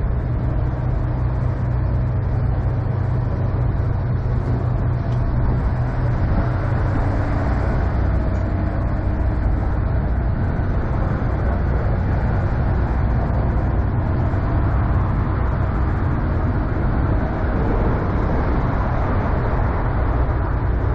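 Steady low rumble of idling diesel semi-truck engines.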